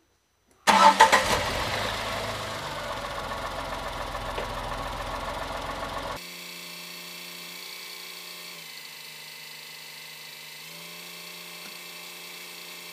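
Tata Tiago's Revotron 1.2-litre three-cylinder petrol engine cranking and catching about a second in, then settling into a steady idle with no throttle, engine flush mixed into the old oil to loosen sludge before the drain. About six seconds in the sound turns abruptly quieter and thinner, and the idle carries on steadily.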